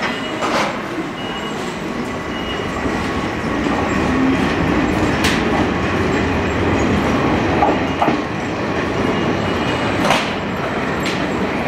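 An Izuhakone Railway Daiyuzan Line electric train running slowly through a station, a steady rumble that grows a little louder partway through. A few sharp knocks from the wheels crossing rail joints come through it, with brief faint high squeaks.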